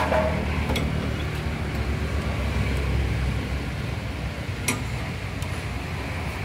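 Belt-driven piston air compressor coming on and running steadily, the switch having closed as its spring is tightened. There is one sharp click about four and a half seconds in.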